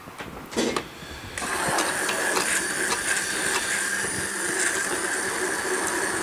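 A clunk, then about a second and a half in a hand-held immersion blender starts and runs steadily with a high whine, puréeing sweet potato mousseline in a saucepan.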